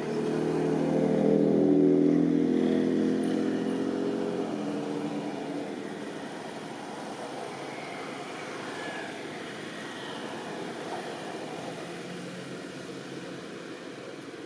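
A motor vehicle's engine passing by, loudest about two seconds in and fading away over the next few seconds.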